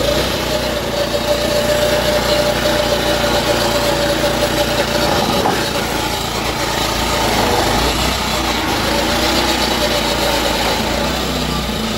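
Walk-behind petrol lawnmower engine running steadily while the mower cuts grass.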